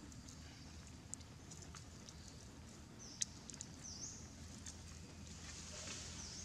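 Faint forest ambience: a low steady hum with scattered light clicks and rustles in dry leaves, the sharpest about three seconds in, and a few short high-pitched chirps.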